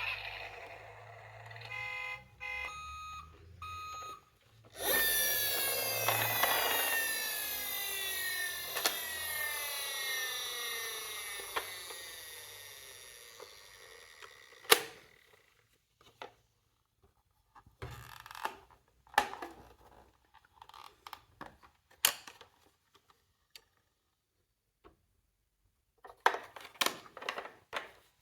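Electronic siren sound effect from a toy emergency vehicle: a few short beeps, then a loud siren burst with falling sweeps about five seconds in that fades away over about ten seconds. Scattered clicks and knocks follow.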